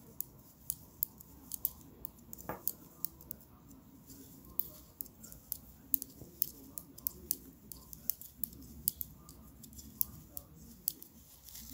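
Knitting needles clicking as stitches are worked: a faint, irregular run of light clicks, several a second, with one heavier knock about two and a half seconds in.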